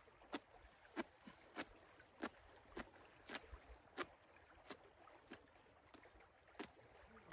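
Feathers being plucked by hand from a mallard duck: a series of short, sharp rips as each pinch of feathers is torn out, roughly every half second, with a short pause near the end.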